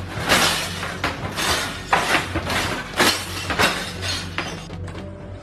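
Dishes and kitchen drawers clattering and crashing over and over, about every half second, as a kitchen shakes in an earthquake.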